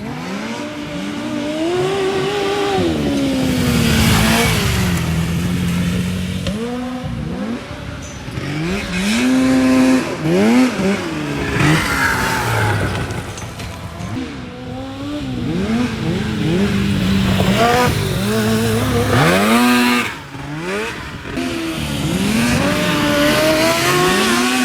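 Engine-swapped Honda Odyssey buggies running hard on a dirt track. The engines rev up and drop back again and again through the laps.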